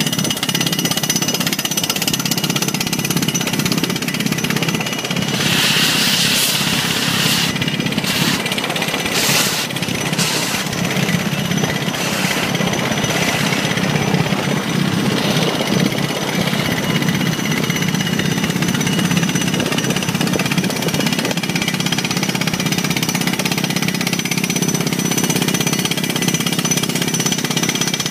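Pneumatic crawler drill rigs hammering through rock, drilling holes for pile foundations, with a loud, continuous rapid rattle. A few short bursts of hiss cut through it near the first third.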